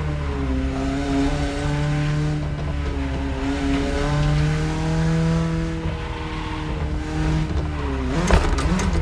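BMW E30 engine running under light throttle, its note rising and falling gently with the revs. Near the end the note drops sharply and a few sharp cracks sound.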